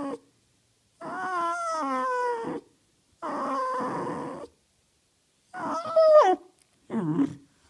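Jack Russell terrier making a run of drawn-out, wavering whine-howls, each about a second long with short pauses between. The loudest, near the end, drops in pitch as it ends, followed by a short one.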